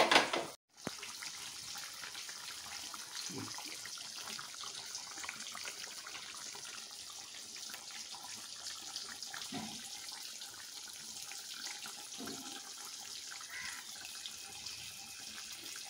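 Tap water running steadily into a sink, with faint clinks. It follows a brief louder noise at the very start that cuts off abruptly.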